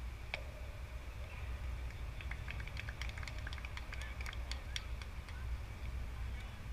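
Wind rumbling on the microphone, with one sharp crack about a third of a second in, followed by a brief ring, as the pitch reaches home plate. A scatter of faint clicks follows, from about 2 to 5 seconds in.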